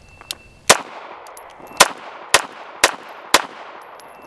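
Bersa Thunder 380 Plus pistol firing five .380 ACP shots: one shot, a pause of about a second, then four in quick succession about half a second apart, each followed by a ringing echo. A lighter, sharp click comes just before the first shot.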